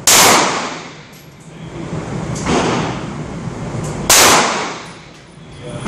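Two 12-gauge shotgun shots about four seconds apart, each a sharp bang that rings out and fades in the echo of an indoor range.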